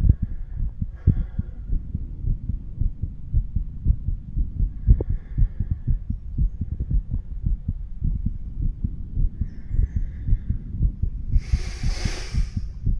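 An adult man's heartbeat heard through a stethoscope on the chest: repeated low thuds of the heart sounds. A short burst of hiss, about a second long, comes near the end.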